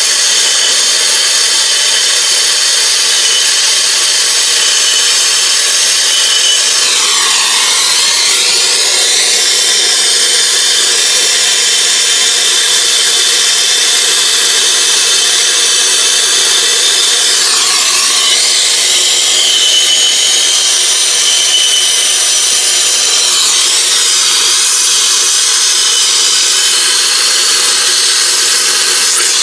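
Brazing torch flame hissing steadily while silver soldering copper refrigerant line joints on an air-conditioning coil. The hiss sweeps down and back up in tone three times as the torch moves.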